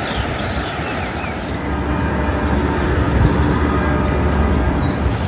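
A passing vehicle: a low rumble with steady whining tones that grows louder about two seconds in.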